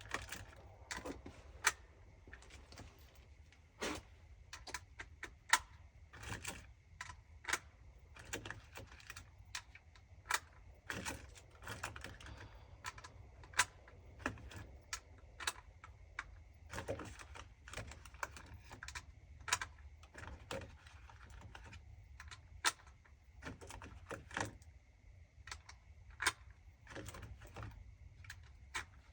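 Irregular light clicks and taps, a few a second and uneven in strength, over a low steady rumble.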